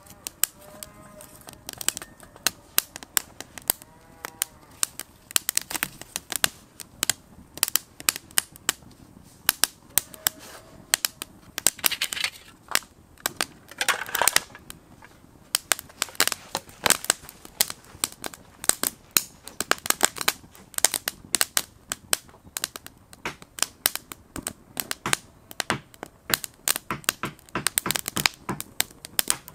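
Split kindling sticks crackling and snapping as they catch fire in a small folding steel wood stove. There are many sharp, irregular pops throughout, with a louder rush of noise around the middle.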